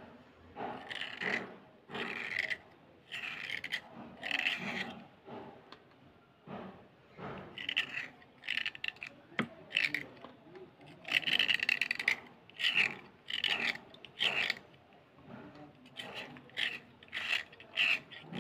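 A metal blade scraping a slate pencil in quick, short strokes, each one a crisp, gritty scrape as the soft stone shaves off. The strokes come in runs of about two a second, with short pauses about a third and four-fifths of the way through and a single sharp tick near the middle.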